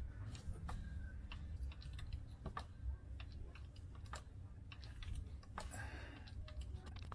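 Irregular light clicks and ticks from hand tools being worked, over a low steady rumble.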